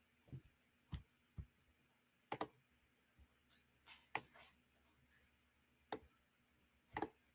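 Near silence broken by about eight faint, short clicks and knocks at irregular intervals, typical of handling at a computer desk.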